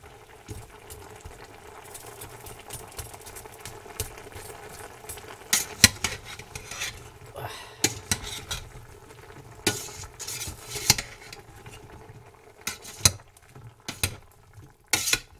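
Metal tongs stirring chunks of beef, mushrooms and onion in a large stainless steel pot, scraping and knocking against the pot at irregular moments, over a low sizzle of the food cooking.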